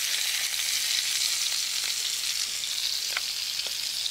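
Minced-beef kofta patties sizzling steadily as they fry in a pan, with a couple of light utensil clicks near the end.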